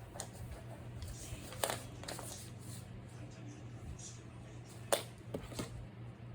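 Paper craft materials being handled on a table: a few short, sharp rustles and taps, the loudest about five seconds in, over a steady low hum.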